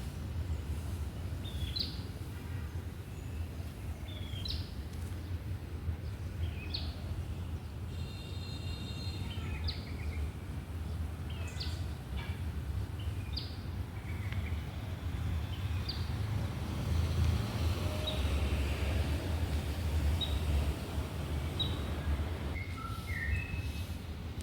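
Wild birds in a tree giving short, scattered high chirps, several birds calling at irregular intervals, over a steady low rumble.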